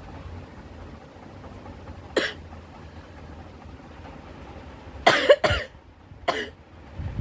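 A person sneezing in short, forceful bursts: one small sneeze about two seconds in, then two loud ones in quick succession around five seconds in, and another a second later.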